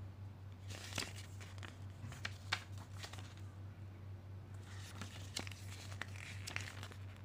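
Paper pages of a printed user manual and folded leaflets rustling and crinkling as they are handled and flipped, in two spells with sharp crisp snaps of paper. A steady low hum runs underneath.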